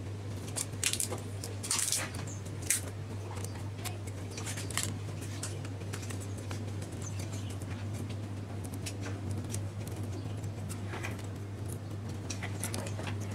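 Clear adhesive tape being pulled off its roll and pressed onto a bicycle frame: a few short scratchy, crackly bursts, most in the first few seconds and again near the end, over a steady low hum.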